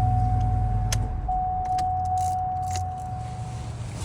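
Cadillac DTS Northstar V8 idling with a steady low rumble, running again after a loose battery cable was reseated. A thin, steady high tone sounds over it and fades out near the end. A few light clicks and jingles, like keys, come through the middle.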